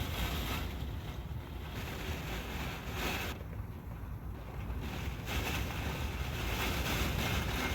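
Strong typhoon wind gusting, a low rumble with a rushing hiss above it that eases for a couple of seconds about three seconds in, then picks up again.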